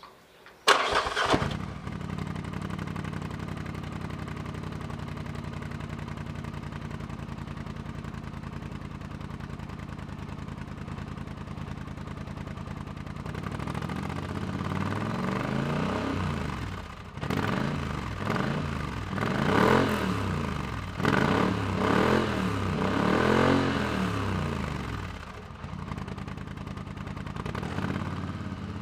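Polaris Sportsman 850 XP's twin-cylinder engine, fitted with a custom exhaust and a Power Commander V tune, is started about a second in. It idles with a steady beat, then is revved in a run of rising-and-falling throttle blips before settling back to idle near the end.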